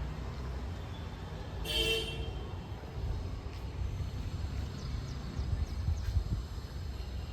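A vehicle horn honks once, briefly, about two seconds in, over a steady low rumble of road traffic.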